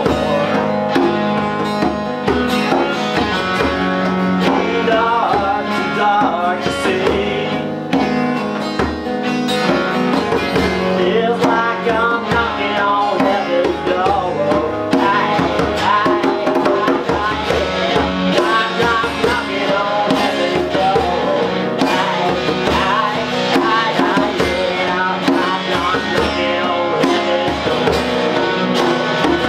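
Live acoustic jam: an acoustic guitar strumming and an electric guitar playing lines over it, with a djembe hand drum keeping a steady beat.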